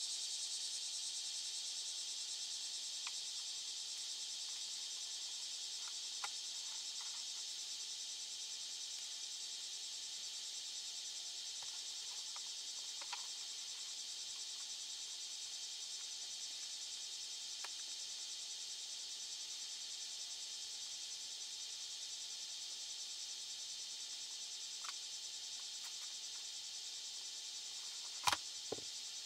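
Steady, high-pitched insect chirring with a fast pulse. Over it come a few light clicks of small plastic and metal parts being handled and fitted. The loudest is a sharper double click a little before the end.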